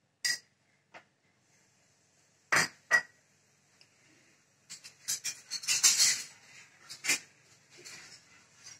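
A metal spoon clinking sharply against a bowl and a kadhai as ghee is spooned in, with two loud clinks about two and a half seconds in. After that comes a spell of crackling and hissing from the ghee heating in the hot kadhai.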